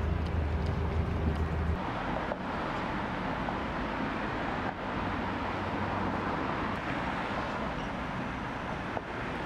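A low, steady mechanical hum that cuts off abruptly about two seconds in. It gives way to a steady wash of noise like distant traffic or street ambience.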